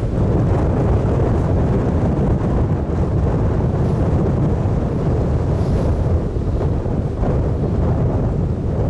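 Strong storm wind buffeting the microphone: a steady, loud low rumble with no distinct tones or impacts.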